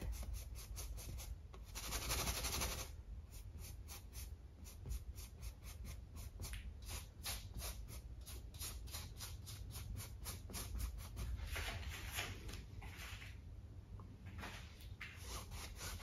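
Filbert paintbrush bristles working acrylic paint on a stretched canvas in quick short wiggling strokes, a fast run of faint scratches at about four a second, with longer brushing swishes about two seconds in and again near twelve seconds.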